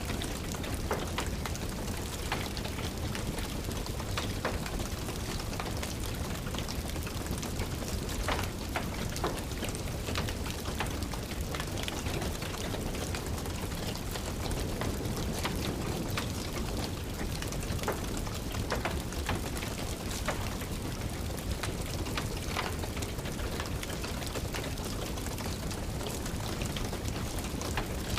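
Steady rain, with frequent sharp crackles and pops from a wood fire burning in a fireplace.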